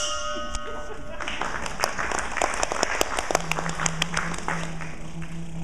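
Audience applauding: dense, irregular clapping that swells in after about a second and fades near the end. It opens with a brief held chord of several steady tones, and a low steady tone comes in about halfway through.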